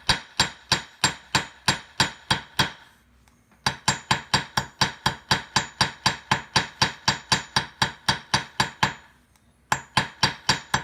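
Hammer tapping the heated end of a steel coat-hanger wire against a metal anvil top to flatten it: quick, even metal-on-metal strikes about four a second. The strikes come in three runs, with short pauses about three seconds and nine seconds in.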